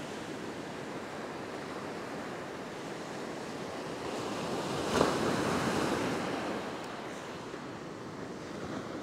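Surf breaking on a sand beach: a steady wash that swells to a peak around the middle and then eases. A single short sharp knock comes about five seconds in.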